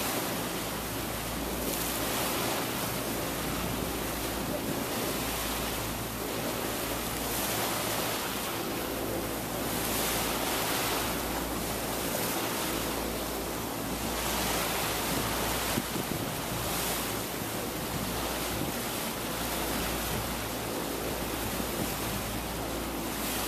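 Wind buffeting the microphone and water rushing past the hull of a moving tour boat, swelling and easing every few seconds, with a low steady engine hum underneath.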